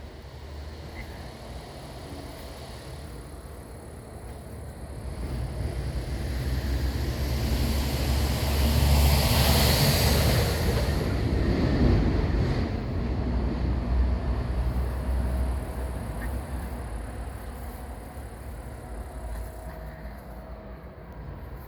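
A vehicle passing by: a rumbling noise that swells to a peak about ten seconds in and then fades away.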